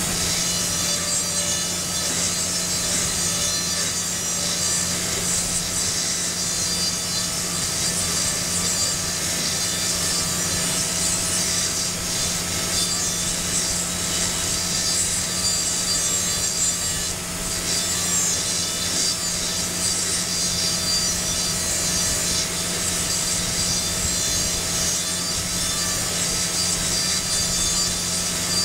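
High-speed air-turbine dental handpiece running steadily with a high whine, its straight fissure burr grinding into a typodont molar to cut and shape a Class I cavity. The grinding briefly eases about two-thirds of the way through.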